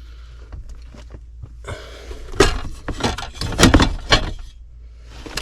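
Metal rattling and a cluster of sharp knocks as an HVAC electrical disconnect box is handled, loudest from about two seconds in to about four, over a low steady hum.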